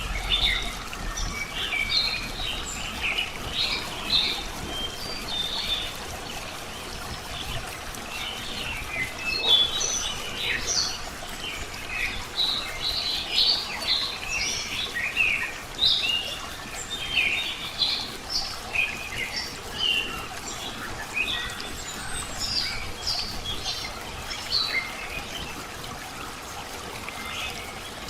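Many small birds chirping and calling in quick, overlapping notes, over a steady trickle of flowing water. The chirps thin out near the end.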